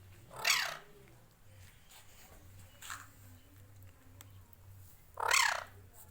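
Ringneck parrot giving two loud, harsh calls about four and a half seconds apart, each lasting about half a second, with a fainter short call between them.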